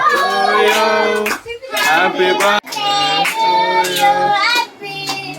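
Voices singing a song together, a child's voice prominent, in held notes with short breaks between phrases.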